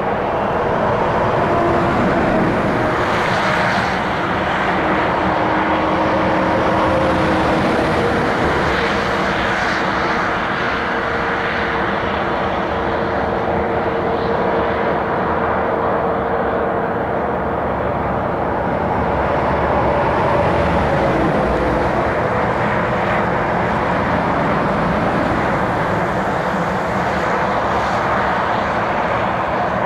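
Steady noise of motorway traffic, with the long hum of passing vehicles sliding slowly in pitch.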